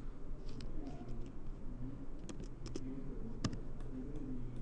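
A few scattered clicks of a computer mouse and keyboard, the loudest about three and a half seconds in, over a steady low hum.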